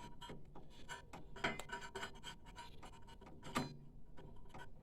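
Faint scratching and a couple of sharp clicks from hands working on a printer's parts and screws during reassembly.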